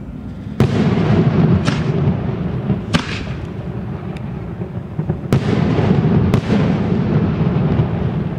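Aerial fireworks exploding: about six sharp bangs a second or so apart, with a continuous low rumble of echoes between them.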